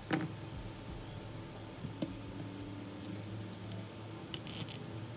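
Scattered small clicks and taps from hand tools and parts being handled during phone repair work: a sharp one just after the start, another about two seconds in, and a quick cluster near the end.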